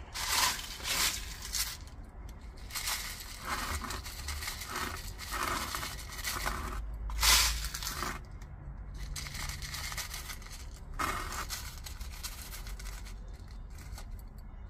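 Gravelly potting mix and small pebbles being scooped and poured by hand into a small ceramic pot: a dry, gritty rustling and scraping in repeated bursts, loudest about seven seconds in.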